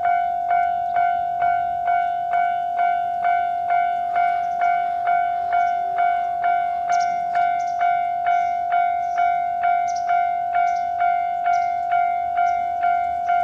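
Japanese railway level-crossing alarm ringing its "kan-kan" bell tone steadily at about two strikes a second. From about four seconds in, a passing train adds a rushing noise and a run of sharp high clicks.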